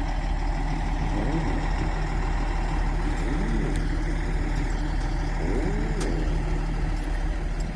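Heavy vehicle engine running steadily at idle, a low even hum, with a couple of faint clicks.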